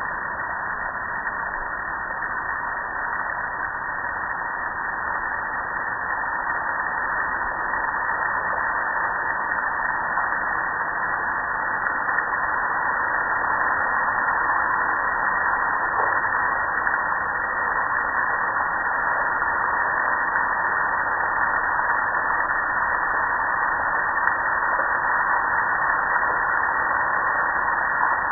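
Jets of water spraying onto a soapy metal gas grill: a steady, muffled hiss of spray that grows a little louder over the first ten seconds or so.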